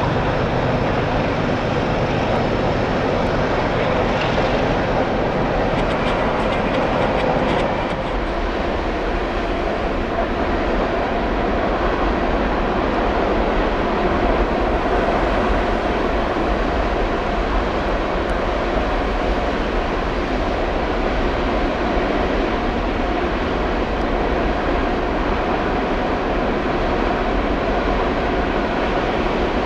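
Long freight train of empty bulk cars rolling past, a steady rumble of wheels on rail with a faint steady whine over it. A few short knocks come about five to seven seconds in.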